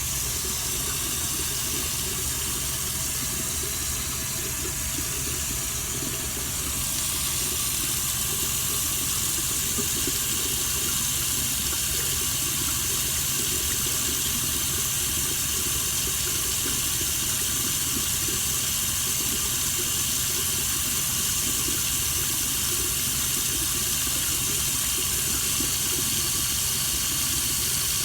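Water running steadily from a tap into a sink, a little louder from about seven seconds in.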